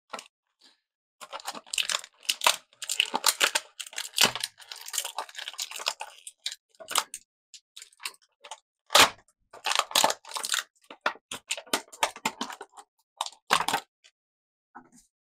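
Action-figure packaging being opened by hand: plastic and cardboard crinkling, crackling and tearing in irregular bursts with short pauses, loudest about nine seconds in.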